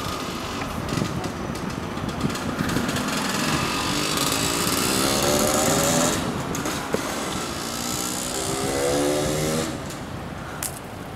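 Steady wind and rolling noise from a mountain bike ridden over paving, with an engine revving up in rising pitch twice, about four and eight seconds in.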